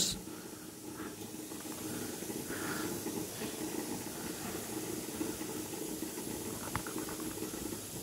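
Steady hiss of spraying or running water, with a few light taps about seven seconds in.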